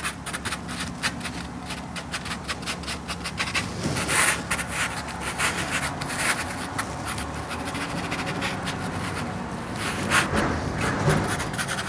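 Pastel stick pushed hard across heavy watercolour paper in quick, short scratching strokes, gritty and abrasive. A few louder strokes come about four seconds in and again near the end.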